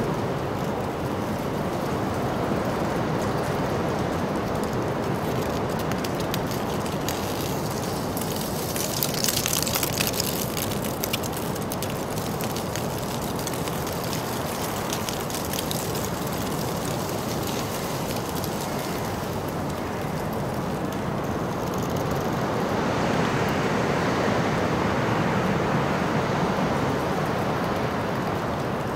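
Outdoor city street ambience: a steady wash of background noise with vehicles passing, one with a crackling rattle about a third of the way in and another swelling and fading near the end.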